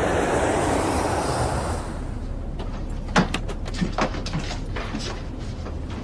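Jet airliner passing overhead, an even rushing roar that fades out about two seconds in. A steady low cabin drone follows, with a handful of short, soft knocks and taps.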